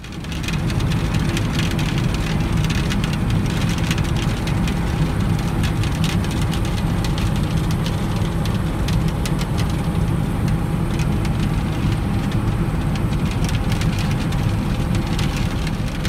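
Farm harvest machinery running steadily: a constant engine hum under an even rushing noise. It rises from silence at the very start.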